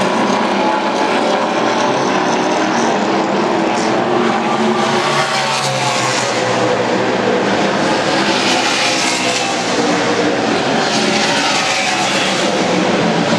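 NASCAR Nationwide Series stock cars' V8 engines running at speed around the track, a loud continuous drone of several cars, with pitch shifting up and down as cars pass.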